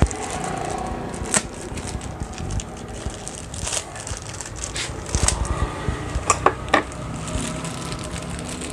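Small metal single-shifter parts being handled and set down: scattered sharp clicks and light knocks, several close together about five to seven seconds in, over a steady low hum.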